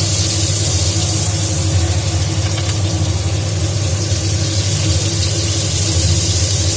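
Steady low mechanical hum with an even high hiss over it, unchanging throughout.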